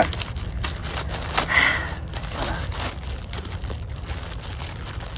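Crinkling and rustling of mail packaging being handled, a run of short, irregular crackles.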